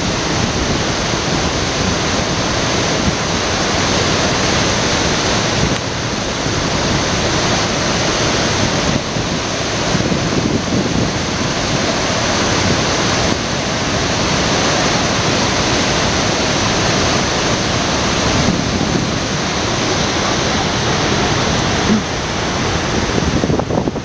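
Wide waterfall in full flood, heavy brown river water crashing over a rock ledge into a churning pool: a loud, steady rush of falling water.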